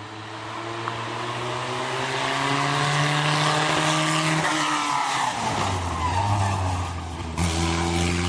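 Hillclimb race car engine running hard through a corner. It gets louder over the first few seconds, its pitch drops about halfway through, and a lower note carries on with a sudden jump near the end.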